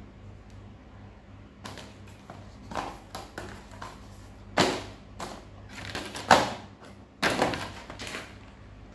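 Small cardboard gift box being handled: soft scraping and tapping, then several sharp knocks and rustles, the loudest a little past halfway, as it is knocked against and laid on a pile of plastic-wrapped stationery.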